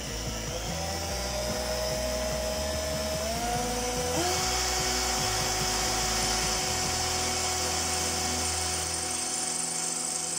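Mikel's TAI-18 18 V cordless drill/driver boring a hole through a 14-gauge steel ruler. The motor runs with a steady whine that steps up in pitch a few times in the first half and then holds, over a steady hiss.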